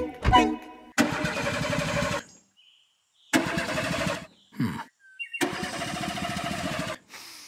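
A car engine's starter cranking in three separate attempts, each lasting about a second, with a short falling sputter between the second and third. The engine does not catch.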